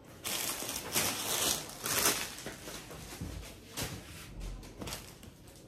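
Rustling of folded lawn suit fabric being handled and laid out on a table, with a few soft bumps of the cloth set down.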